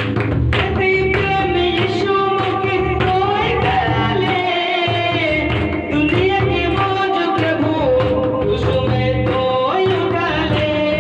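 A man singing a Hindi Christian worship song into a microphone, his voice gliding between held notes, over accompanying music with a steady beat.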